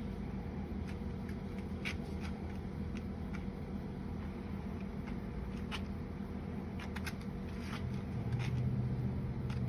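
Rope being handled and wrapped around itself while a load is tied down, with scattered short rustles, scrapes and clicks. A steady low hum runs underneath and grows louder near the end.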